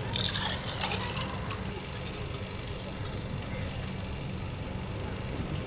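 Steady low engine-like hum of street ambience, with a brief hiss in the first second or so.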